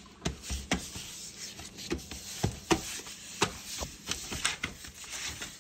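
A dog tearing and scratching at a cardboard box, making irregular sharp rips, crackles and scrapes of cardboard.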